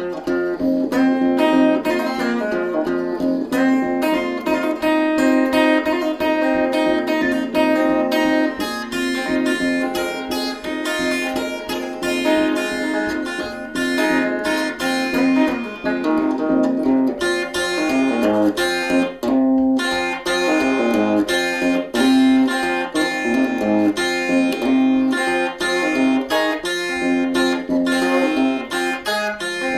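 Acoustic guitar playing a blues instrumental passage without singing: a run of picked notes over a steady low ringing note.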